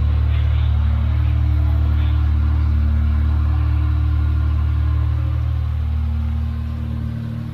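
Unimog 404's petrol straight-six engine running steadily as a low drone, quietening noticeably near the end.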